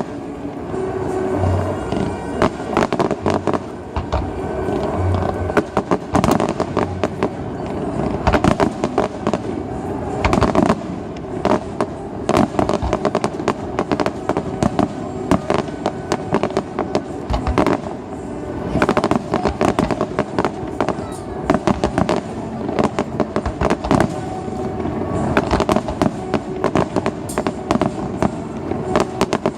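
Fireworks display: aerial shells bursting in many rapid, repeated bangs and crackles, with music playing underneath.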